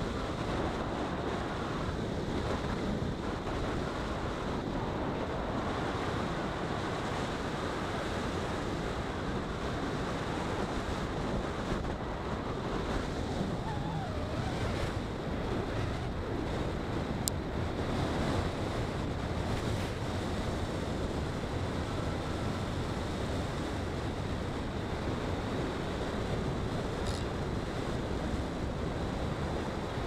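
Steady road and wind noise of a car driving along an asphalt road, an even rushing hiss with no change in level, and a single faint click about halfway through.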